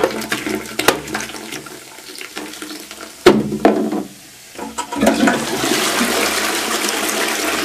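Cola poured from a can into a toilet bowl, splashing, then a sudden loud clunk and splash a little over three seconds in as the can drops into the bowl. From about five seconds in the toilet flushes with a steady rush of water.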